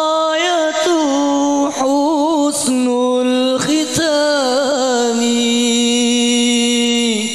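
A man singing solo into a microphone in an ornamented Arabic devotional style. Twisting melodic runs in the first half give way to one long held note that ends just before the close.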